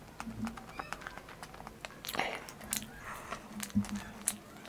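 Close-up sounds of a person chewing and eating, a run of small, sharp, wet mouth clicks, a little louder about two seconds in.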